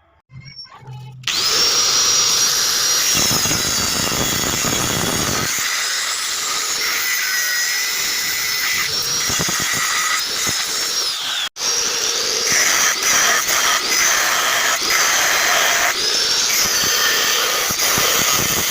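Electric power grinder working steel, a steady loud grinding noise with a high whine that dips and rises as the tool is loaded. It breaks off for an instant about eleven and a half seconds in, then carries on.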